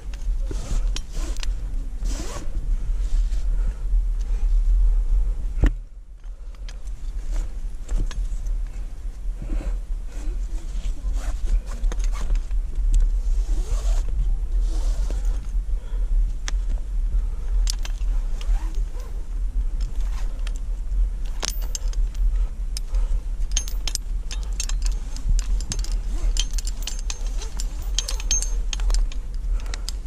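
Aluminium carabiners and quickdraws jangling, clicking and scraping against a rusted steel anchor chain as climbing gear is handled at the anchor, in many short clicks over a steady low rumble on the microphone. The sound briefly drops off about six seconds in.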